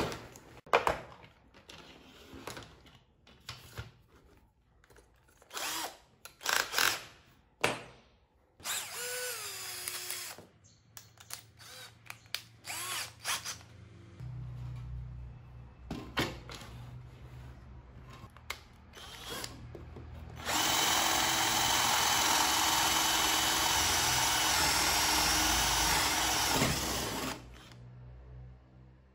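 Clicks from a plastic drill-bit case and a keyless chuck being handled and tightened, with two brief spins of the drill motor. Then a Hilda 21V cordless drill drives a twist bit through a wooden board for about six seconds, running steadily at full load. It does not cut out: the replaced trigger switch and BMS have cured its habit of shutting off under full torque.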